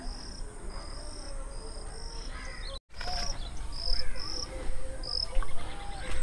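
Insects chirping in a steady series of short, high chirps, roughly two a second, over a low rumble, with a brief dropout about three seconds in.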